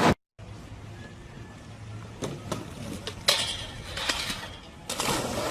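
Skateboard clacking and scraping: sharp knocks of the board and wheels, the loudest about three seconds in, then a short scrape as it rides a metal handrail.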